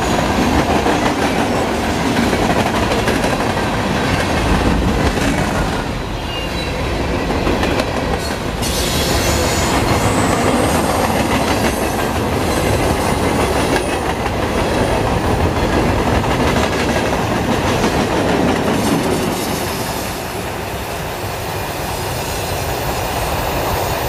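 Norfolk Southern manifest freight train rolling past: a steady rumble and clatter of freight-car wheels over the rails, with faint wheel squeal now and then. The last cars are the yellow Herzog rail-train cars.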